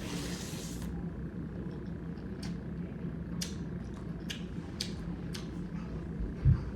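A person eating: a brief hiss at the start, then scattered small clicks of chewing and mouth sounds over a low steady hum, with one dull thump near the end.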